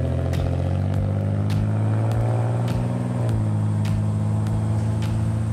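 Pontiac Grand Prix's GM 3800 V6 accelerating away under throttle: the engine note climbs for about three seconds, drops sharply as the automatic transmission shifts up, then holds steady.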